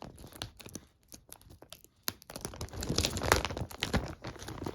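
Magazine gift packaging being handled and torn open: scattered light crackles at first, then denser crinkling and tearing from about two seconds in.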